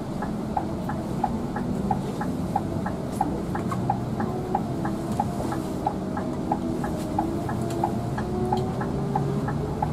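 A Scania bus's turn-signal indicator ticking evenly, about three ticks a second, over the steady hum of the bus's engine in the driver's cab.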